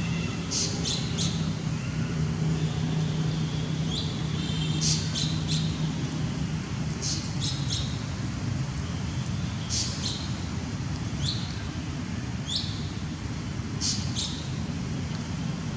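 Birds chirping: short high chirps in quick clusters every second or two, over a steady low rumble.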